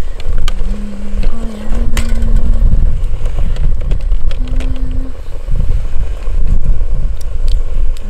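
A spoon stirring and clicking against the aluminium pot of a Trangia Storm Cooker, over a steady low rumble.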